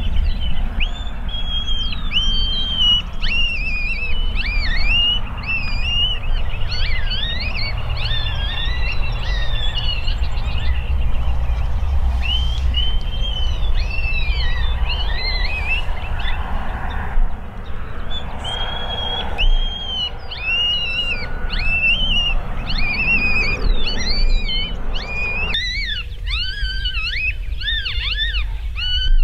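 High, wavering coyote yelps and whines: many short calls rising and falling in pitch, overlapping more thickly near the end. Under them a heavy wind rumble on the microphone, which drops away about 25 seconds in.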